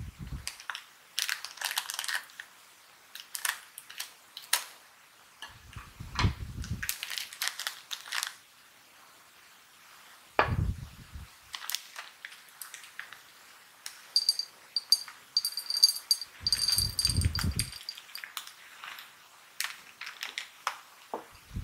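A foil snack bag crinkling as it is handled, with a few dull knocks of things set down on the table. From about 14 s to 17 s, small hard fried green peas rattle into a clear dish with a dense run of clicks.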